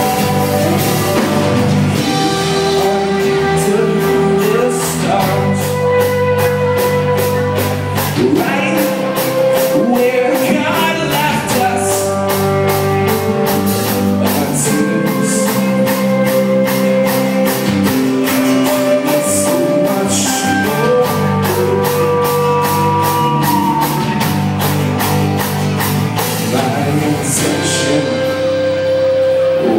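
Live rock band playing: electric guitars and a strummed acoustic guitar over a drum kit keeping a steady beat, with long held notes above.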